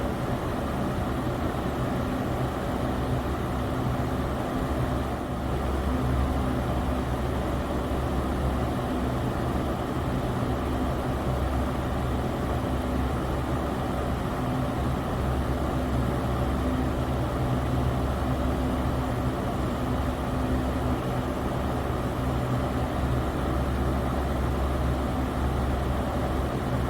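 Electric fan running steadily, a constant whooshing of moving air over a low motor hum.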